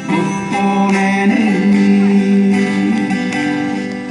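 Ensemble of four acoustic guitars playing a tune together, with sustained, ringing chords.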